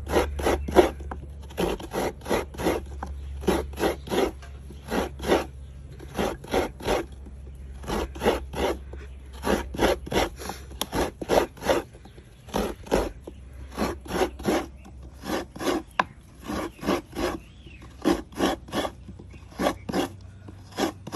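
A coconut half being scraped against the grating blade of a wooden coconut-grating stool, grating out the white flesh. Quick rasping strokes, about three a second, come in runs with short pauses.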